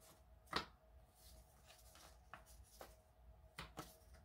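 Faint flicks and rustles of paper prop-money bills being leafed through by hand, one louder flick about half a second in and a few softer ones later.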